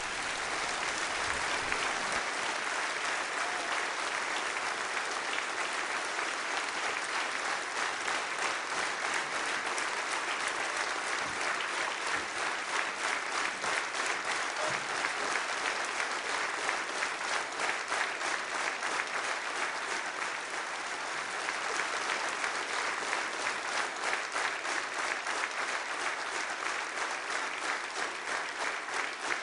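Concert audience applauding, a dense, steady clapping that eases slightly about twenty seconds in and then picks up again.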